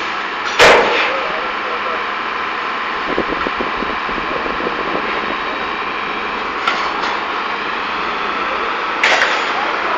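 Steady machinery noise, with one loud bang about half a second in, a lighter knock near seven seconds and a double bang about nine seconds in.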